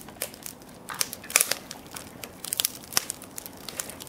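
Dry firewood crackling and popping as it burns in a fire pit: irregular sharp pops several times a second, the loudest about a second and a half in and again near three seconds.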